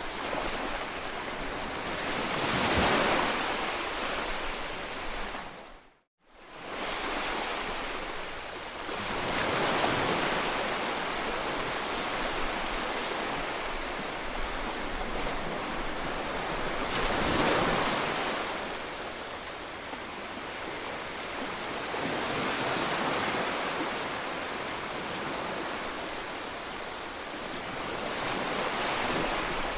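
Small surf breaking and washing up a sandy beach, rising and falling in slow swells every six or seven seconds. The sound drops out for a moment about six seconds in.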